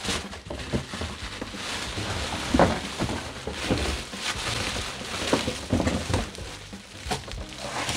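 Plastic packaging rustling and crinkling and a cardboard carton being handled as a wrapped massager part is worked out of its box, with several dull knocks of the item against the cardboard.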